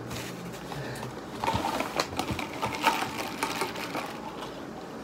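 Close-up eating and food-handling noises: a dense run of rapid clicks and crackles for a couple of seconds in the middle, from chewing and a small plastic bag of pickles being handled.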